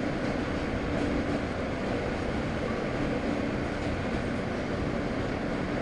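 Subway train in motion, heard from inside the car: a steady rumble of wheels on the elevated track, with a faint steady hum.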